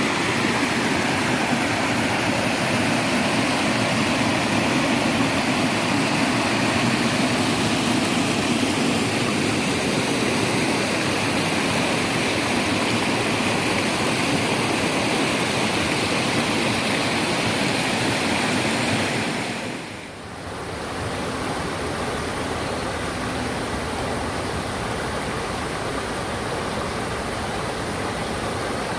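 Rushing water of a mountain valley stream and waterfall, a steady dense hiss. About twenty seconds in it dips briefly and comes back a little quieter.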